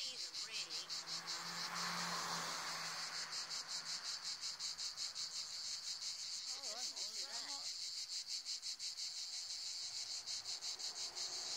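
A chorus of cicadas in a tree makes a high, rapidly pulsing buzz that keeps an even beat; the recorder takes them for moths. A bird chirps a few times about seven seconds in.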